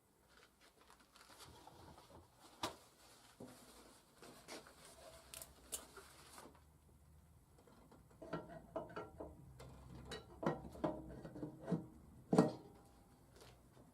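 Irregular light knocks, taps and rubbing sounds in a small room, with scattered clicks at first, then a quicker run of knocks, the loudest one near the end.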